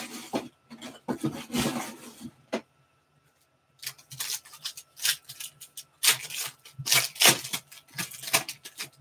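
Basketball trading cards rubbing and sliding against each other as a stack is handled, then a foil card-pack wrapper crinkling and being torn open, in short rustling strokes with a pause of about a second in the middle.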